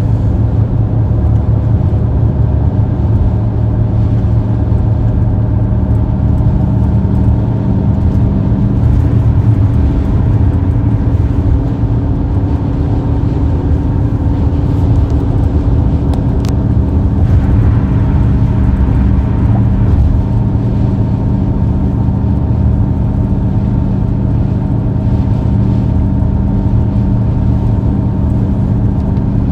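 Car driving at speed, heard from inside the cabin: a steady, loud low rumble of road and engine noise with a constant hum.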